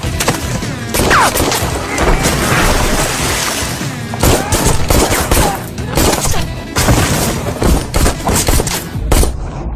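Film fight sound effects: a rapid run of hits, thuds and crashes over dramatic background music.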